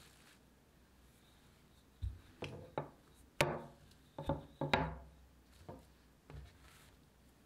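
Wooden rolling pin rolling out bread dough on a countertop. After a quiet start, about two seconds in comes a run of wooden knocks and rolling rumbles, loudest around the middle, then a few lighter taps.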